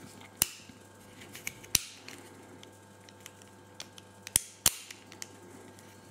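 Sharp plastic-and-metal clicks from a Campagnolo left-hand shifter's spring and ratchet mechanism being worked by hand: a few louder snaps, two close together past the middle, among lighter ticks.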